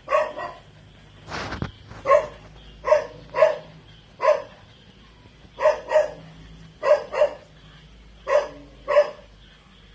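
Chow Chow puppy giving short, high yapping barks, often in quick pairs, roughly one a second. There is one brief noisy scrape or rattle about a second and a half in.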